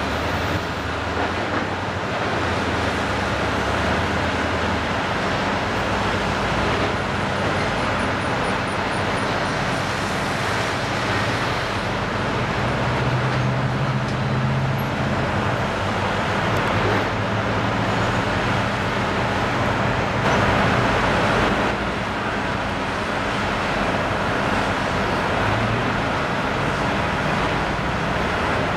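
Diesel engine of a Volvo tracked excavator running under load, its pitch shifting as it works, over a constant wash of noise; it gets a little louder about twenty seconds in.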